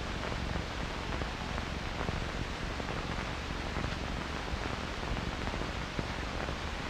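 Steady, even hiss with no distinct bangs or other events: the background noise of an old film soundtrack.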